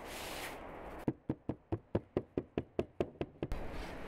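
A quick, even run of about a dozen sharp knocks, about five a second, made by kitchen work on a hard surface.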